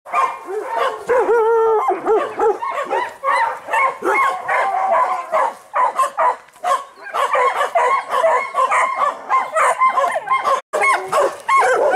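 A large group of dogs barking, yipping and howling together, many voices overlapping in a continuous chorus. It breaks off for a moment near the end.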